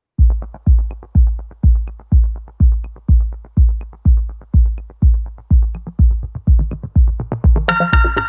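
Electronic dance background music with a steady kick drum, about two beats a second, starting right after a brief dropout; a synth melody comes in near the end.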